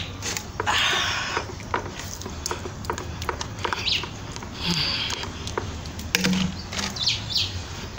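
A stick stirring thick soap mixture of caustic soda solution and palm kernel oil in a plastic basin, with repeated clicks and knocks and a swishing slosh about a second in and again around five seconds. A few short bird chirps sound over it.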